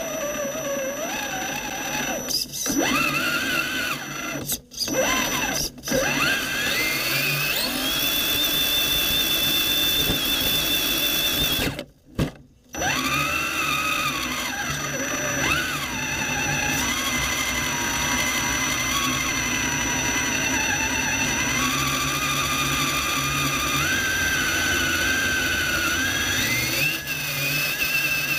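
Electric motor and gear drivetrain of a 1/10-scale Axial SCX10 Honcho rock crawler whining as it drives, heard close up from on board. The pitch rises and falls with the throttle, and the motor stops briefly several times, longest for about a second near the middle.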